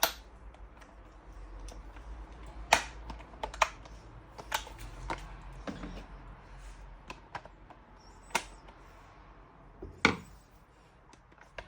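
Irregular clicks and knocks of stand-fan parts being handled and fitted back together, with a few louder knocks scattered through.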